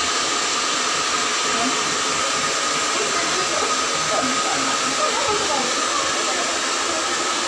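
Handheld hair dryer blowing steadily on wet hair: a constant rush of air with a steady whine.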